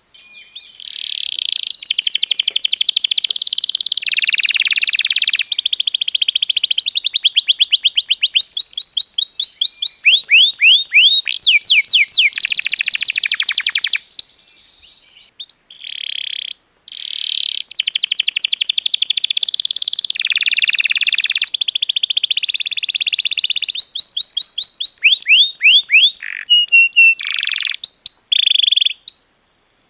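Domestic canary singing a long, loud song of rolling trills, buzzy rolls and fast runs of rising whistled notes, breaking off briefly about halfway through and again near the end.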